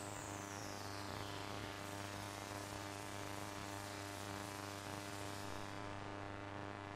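Steady electrical hum and buzz, with a high whine falling in pitch that fades out about a second in.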